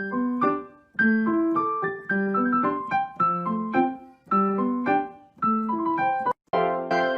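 Background piano music: a light, bouncy melody of separate struck notes in a repeating pattern, breaking off for an instant near the end before carrying on fuller.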